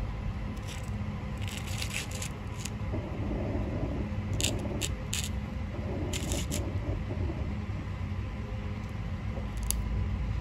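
Baby sulcata tortoises biting and tearing fresh leafy greens: short crisp crunching clicks in several small clusters, over a steady low rumble.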